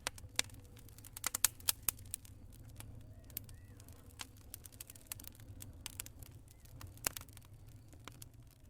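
Wood fire crackling: irregular sharp pops and snaps, a quick cluster of them between one and two seconds in, over a steady low rumble.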